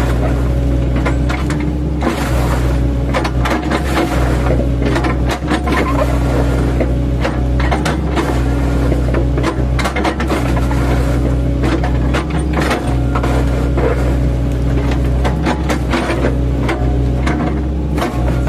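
Engine of an 8-ton excavator running steadily, with frequent irregular cracks and knocks as its bucket, fitted with chipping blade tips, chops oil palm trunks.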